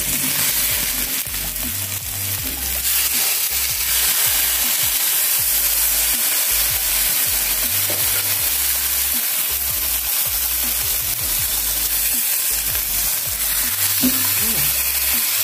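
Marinated whole fish sizzling steadily in fat in a hot nonstick grill pan, while a metal slotted spatula scrapes and works under them to turn them over.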